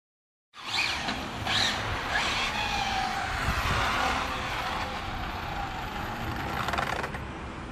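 Twin-motor Arrma Felony RC car running and drifting, its electric motors whining under tyre noise on asphalt. The sound starts abruptly about half a second in and holds fairly steady, with a faint falling whine in the middle.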